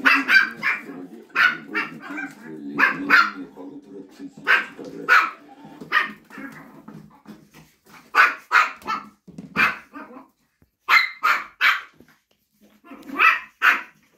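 Chihuahua puppies yapping in high, sharp barks, mostly in quick pairs and threes with short pauses between, as they play boisterously.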